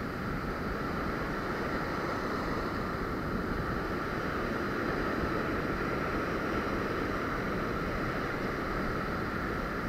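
Steady rush of breaking surf, with wind buffeting the microphone.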